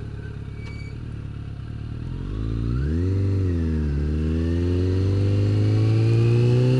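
Motorcycle engine pulling away. It runs low and steady for about two seconds, then the note rises, drops back once about four seconds in, and climbs steadily and louder as the bike accelerates.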